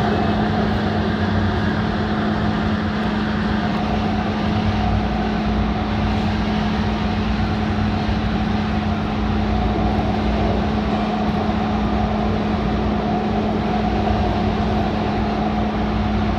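DART light-rail train running steadily at speed, heard from inside the passenger car: a continuous rumble of wheels on rail with a steady hum.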